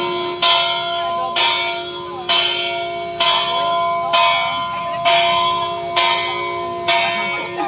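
Church bell tolling steadily at about one stroke a second, each stroke ringing on into the next, calling the faithful to mass.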